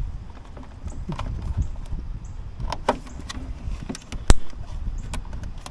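Scattered small clicks and taps of wiring-harness parts and tools being handled, with one sharp, loud click about four seconds in.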